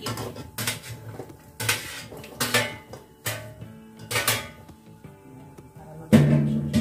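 Metal spoon scraping and knocking against a metal baking tray in a run of short strokes as rice balls are pushed off it into a pot. Near the end comes a louder metal clatter as the tray is set down.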